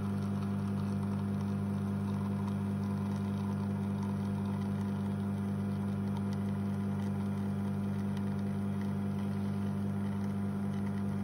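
La Marzocco Linea Mini espresso machine's pump running with a steady, even hum while a shot pulls into the cup.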